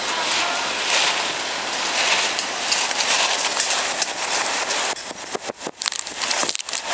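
Strong wind rushing across the microphone over storm waves breaking on the pier. About five seconds in the rush drops away into irregular knocks and rustles of the camera being handled.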